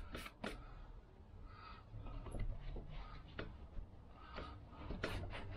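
Faint rubbing of a cloth rag over a scooter engine's crankcase, with a few light clicks from handling it.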